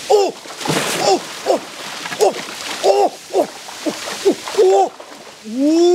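A run of short hooting animal calls, each rising then falling in pitch, about two a second, with a longer, lower arching call near the end. Water splashes briefly about a second in.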